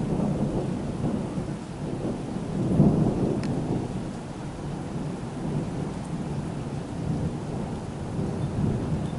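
Rolling thunder, a long low rumble that is loudest about three seconds in and swells again near the end, over a steady hiss of rain.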